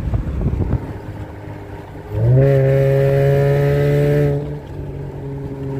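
Dodge Challenger's V6 engine, fitted with a Spectre cold air intake, idling, then blipped up about two seconds in and held at raised revs for about two seconds with a rush of intake air, before dropping back to a steady idle.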